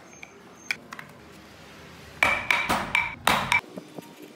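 Hand carving chisel cutting into a small block of wood, a quick run of three or four scraping strokes starting about two seconds in, each with a brief ring.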